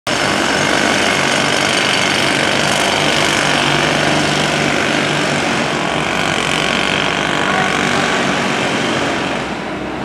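Steady din of construction work at a building site, easing a little near the end.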